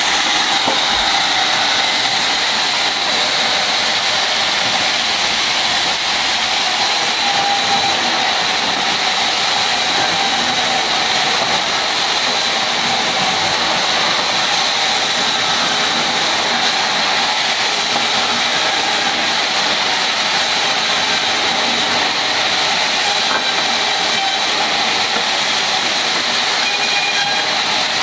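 Large vertical band saw running and cutting rubberwood logs as they are fed through. A steady, loud hiss of machinery with a constant high whine over it.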